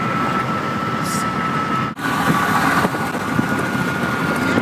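Lamborghini Aventador's V12 engine running steadily, with a brief break about two seconds in.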